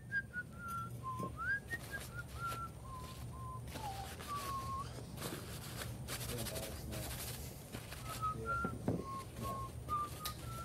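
Someone whistles a tune of short, held notes that step up and down, pausing for a few seconds midway, then picking up again. During the pause there is rustling of something being handled. A steady low hum runs underneath.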